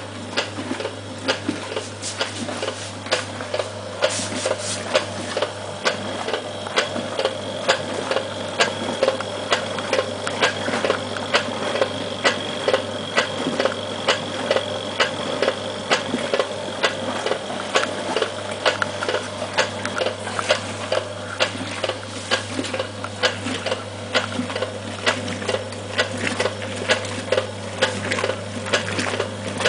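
Peabody 3 kg semi-automatic washing machine running a wash: the motor hums steadily while the blue central agitator churns the sudsy water, with a regular clicking about twice a second.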